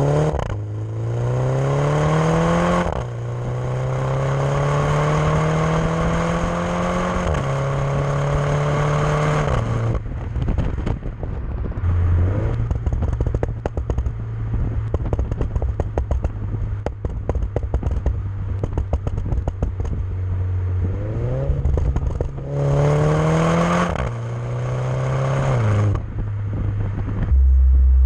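MINI John Cooper Works F56 turbocharged four-cylinder through a Maxi-Tuner valved exhaust, accelerating hard up through two gear changes, then crackling and popping on the overrun once the throttle is lifted. Later it pulls up through one more shift and lifts off again into more crackles.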